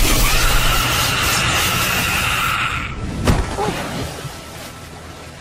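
A woman's long, held scream over the crackle of lightning as she is electrocuted, cutting off about three seconds in. A single sharp crack follows, then the sound fades away.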